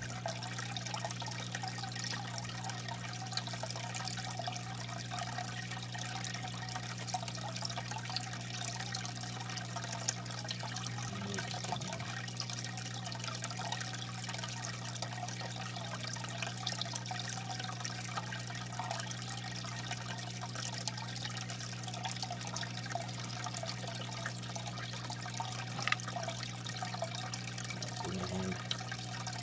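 Aquarium filter running: water trickling and splashing steadily over a low, steady electric hum.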